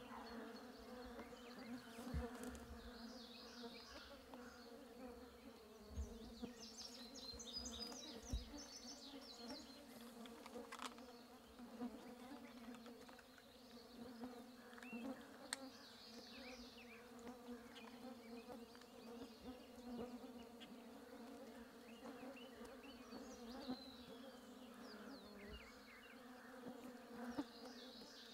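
Swarming gnats buzzing close around the microphone: a faint, steady hum.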